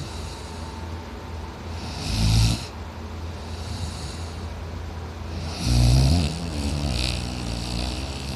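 A man snoring heavily in his sleep: two loud snores about three and a half seconds apart, each a short deep rumble with hiss, the second trailing off into quieter breathing, over a steady low hum.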